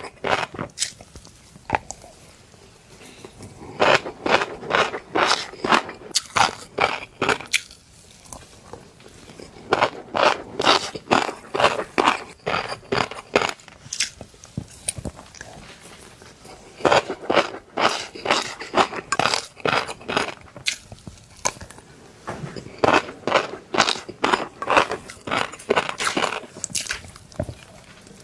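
Close-miked chewing of fish roe, the eggs crunching and popping in rapid runs of crisp crunches. The crunching comes in bouts of a few seconds with quieter pauses between them.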